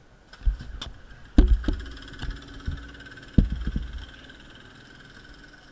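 Several muffled thumps and knocks, the loudest about one and a half and three and a half seconds in: handling noise from an action camera in a waterproof case being moved and set up on a go-kart.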